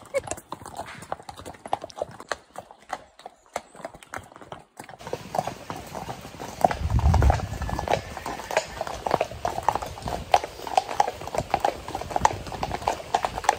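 Hooves of several horses clip-clopping at a walk on a tarmac lane, an irregular run of knocks that grows denser about five seconds in.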